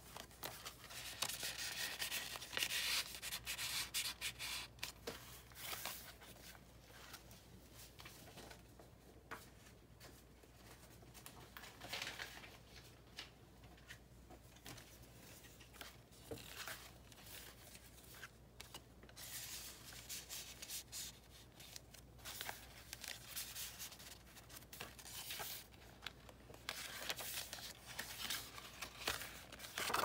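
Paper rustling and sliding as hands turn the scrapbook-paper pages of a handmade junk journal and slide a loose paper piece in and out of a paper pocket, in irregular bursts with small taps.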